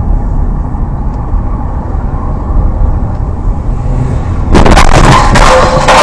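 Low, steady road and engine rumble of a moving car. About four and a half seconds in, a much louder, harsh noise with a steady tone in it cuts in suddenly and holds.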